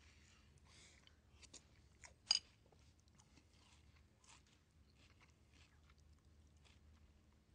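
A person chewing a mouthful of crunchy cereal: faint, scattered soft crunches, with one sharp click about two seconds in.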